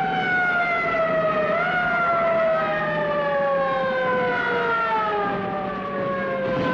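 Air-raid sirens wailing: several overlapping pitched tones that slide slowly downward, with short rises about a second and a half and three seconds in, over a low steady hum.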